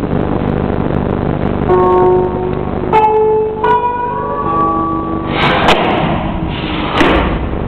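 Instrumental music with plucked strings playing held melody notes. About two-thirds of the way in, and again near the end, a short burst of rustling noise with a sharp knock breaks through the music.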